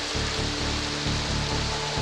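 Background music with a steady low beat and held notes, over the steady rush of river water.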